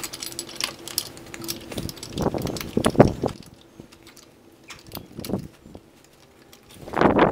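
Metal parts clicking, knocking and scraping as a motorcycle's rear brake caliper is fitted back over the disc and onto its bracket, with a louder handling noise about two seconds in and again near the end.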